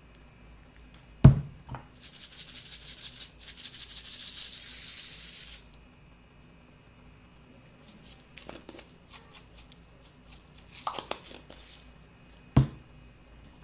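A jar of candy sprinkles shaken in a steady rattle for about three and a half seconds, then shorter scattered rattles and ticks as the sprinkles land on whipped cream. A sharp knock comes about a second in and another near the end.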